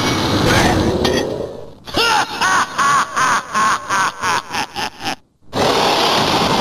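Transformation-belt sound effects from a Kamen Rider Evol Driver. A loud effect fades out, then a run of about ten short chirps, each rising and falling in pitch, comes faster and faster. The sound breaks off briefly, then a loud effect sweeps back in.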